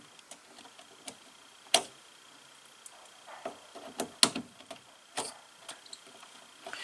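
Scattered small clicks and taps of hand wiring at a terminal block in an electrical control cabinet, as a wire is pushed in and handled. The loudest click comes a little under two seconds in, and several lighter ones follow, over a faint steady high whine.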